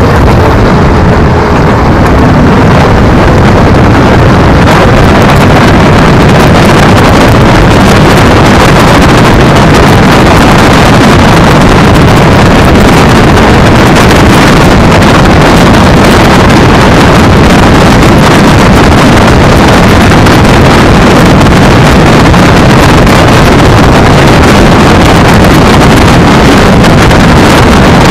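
Wind rushing over a camera microphone mounted low on a moving electric scooter, mixed with tyre and road rumble from the scooter's wheels on a concrete road. A loud, steady rush with no changes.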